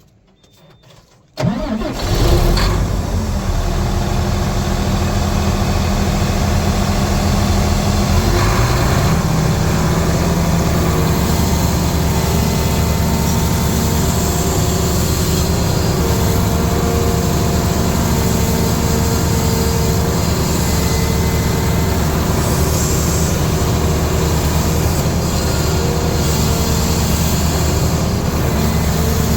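Volvo EC480D excavator's diesel engine starting about a second and a half in, then running steadily; its speed steps up around nine seconds in and holds there.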